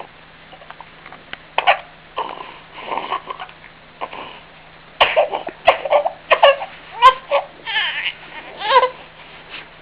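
A three-month-old baby's short vocal sounds while he sucks on his fingers, a few sparse ones at first and then a run of quick, louder ones in the second half. A few sharp clicks come in among them.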